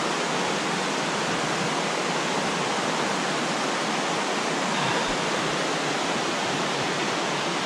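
Creek water flowing steadily, an even, unbroken rushing.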